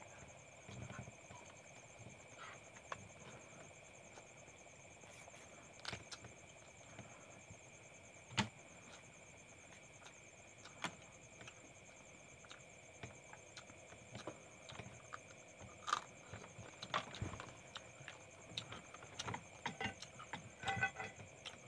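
Cooked crab shells being cracked and picked apart by hand while eating: single sharp clicks and cracks a few seconds apart, then a quicker run of small clicks near the end.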